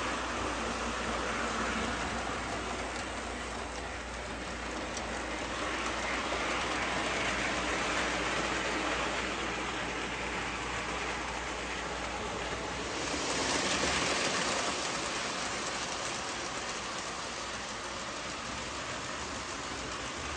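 Postwar Lionel O-gauge toy freight train, pulled by Erie Alco FA diesels, running on metal track with a steady whirring rush of motor and wheels. It grows louder twice as the train comes round, most strongly about two-thirds of the way through.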